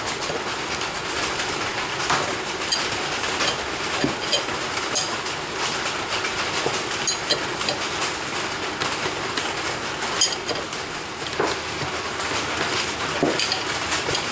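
Wrench tightening the nut on a Yamaha Banshee crankshaft, giving scattered sharp metallic clicks as the drive gear is drawn onto the crank. A steady hiss of heavy rain runs underneath.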